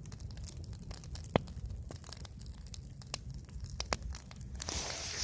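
Fire crackling: scattered sharp pops and snaps, the strongest about one and a half seconds in, over a steady low rumble, with a louder rush of hissing near the end.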